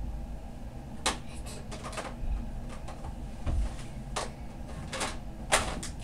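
Hard plastic farm-toy pieces clicking and knocking against a plastic toy barn as a child handles them: a string of sharp clicks, several seconds apart, the loudest about five and a half seconds in.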